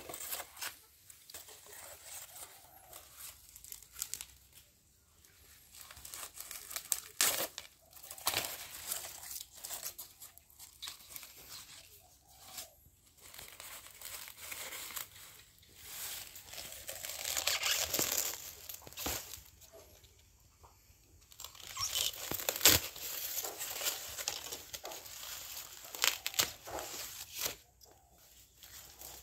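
Dry, papery shield fronds of a staghorn fern crackling and tearing as the plant is pulled apart and cut with a knife. The crackling comes in irregular bursts with sharp snaps, the loudest a little past two-thirds of the way through.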